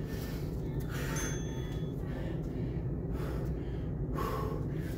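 A man breathing hard in heavy gasps, about one a second, winded from rapid kettlebell snatches. A steady low hum runs underneath.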